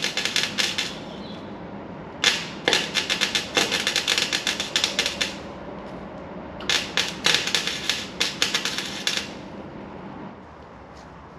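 Clarke 151TE gasless (flux-cored wire) MIG welder crackling in short runs of a few seconds, with brief pauses between them, as a steel patch is welded into a rusted vehicle sill.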